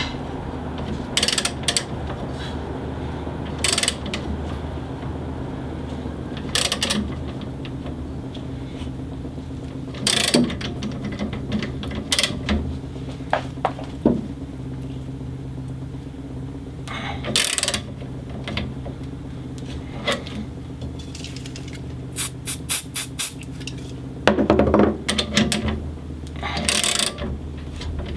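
Workshop handling sounds: scattered sharp clicks, knocks and short scrapes of metal and tools being handled, including a quick run of about six clicks near the end, over a steady low hum.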